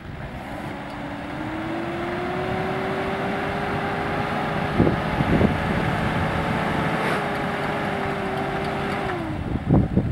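Mitsubishi Pajero off-roader's engine revving up and then held at high, steady revs for several seconds, the revs dropping near the end. A few short knocks come about halfway through.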